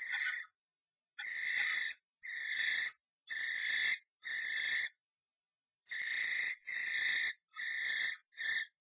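European starlings giving harsh, rasping screeching calls, one after another about once a second with a short pause midway, during a fight inside a nest box.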